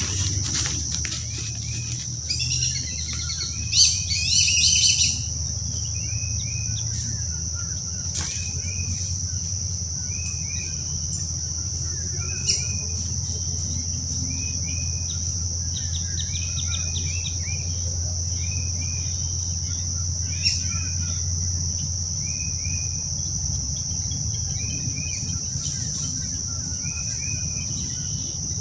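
Forest dusk chorus: a steady high-pitched insect drone with repeated short bird chirps, and a brief flurry of louder bird calls a few seconds in, over a low steady hum.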